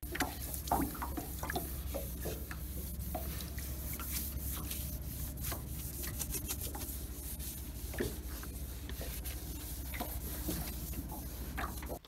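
Sponge rubbing and scrubbing over the fibreglass hull of a yacht in short, uneven strokes, cleaning off staining. A steady low hum runs underneath.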